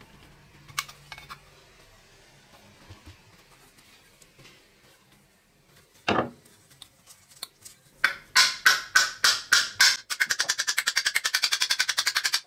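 Rusty bicycle bell's mechanism worked by hand, without its dome: faint scraping clicks, a single knock about six seconds in, then sharp metallic strikes about four a second that speed up into a fast, even clatter near the end.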